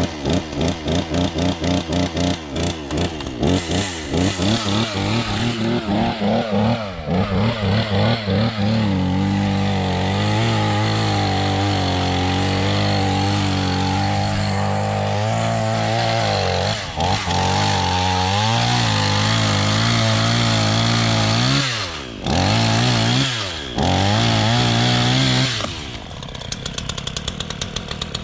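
Two-stroke chainsaw engine running unevenly at first, surging and cutting out in quick pulses. It then holds a steady high rev, drops off briefly twice, and falls back to a lower, ticking idle near the end.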